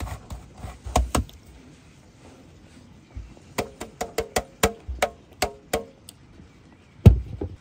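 Stainless-steel box grater knocked against a wooden board: a few knocks, then a quick run of about ten taps, roughly four a second, each with a short metallic ring, shaking off grated cheese. One heavy thump near the end is the loudest sound, as the grater is set down on the wood.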